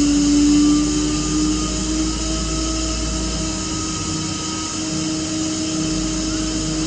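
Almig Variable 55 oil-injected rotary screw air compressor running on load at full output: a steady machine drone with a held whine that shifts slightly in pitch in the first second, then stays even.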